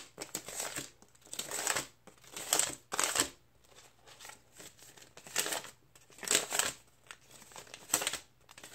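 Paper dollar bills and a clear plastic binder pocket rustling and crinkling in short bursts, about half a dozen of them, as cash is handled and slid into a budget binder envelope.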